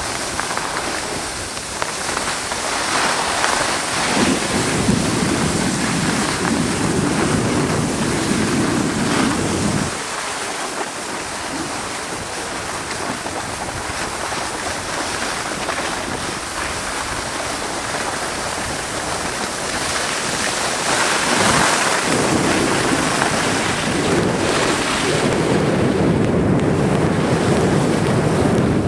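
Wind rushing over the microphone of a camera carried by a moving skier, mixed with the hiss of skis sliding on packed snow. A low rumble of wind swells for several seconds near the start and again near the end.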